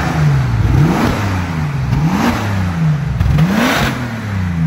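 2014 Bentley coupe's engine being revved while parked: three quick blips of the throttle, each rising in pitch and falling back to idle, peaking near the start, about two seconds in and near the end.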